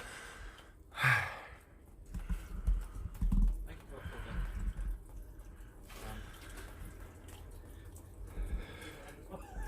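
Water dripping inside a flooded underground shelter, with low thuds of people moving about and a brief loud noise about a second in.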